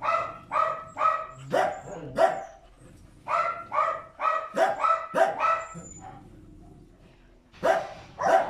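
A dog barking in steady runs of about two to three barks a second, with a lull of under two seconds about six seconds in before the barking starts again near the end.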